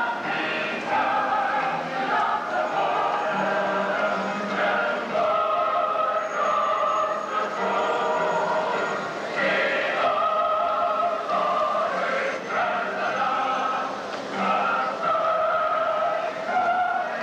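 Choral music: voices holding sustained chords that shift to new pitches every second or two.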